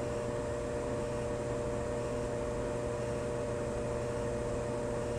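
Forced-air heating system running on a call for heat: a steady hum and rush of air with a constant whine.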